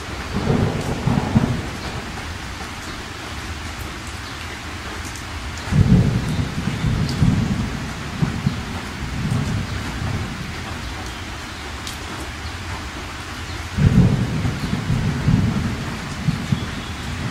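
Steady rain with low thunder rumbling over it several times, the strongest rolls starting suddenly about six and fourteen seconds in.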